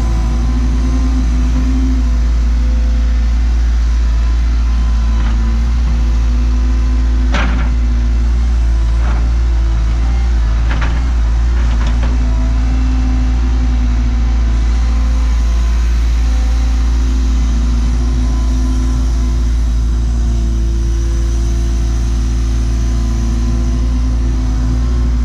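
Cat 314E excavator's diesel engine running steadily, its note rising and falling as the hydraulics work. A few sharp knocks come about a third to halfway in, as the machine handles boulders.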